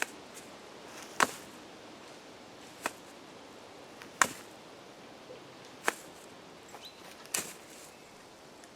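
Cold Steel Recon 1 Tanto folding knife thrust repeatedly into meat wrapped in thick trouser fabric: five sharp stabbing thuds about a second and a half apart, the blade going in with almost no resistance.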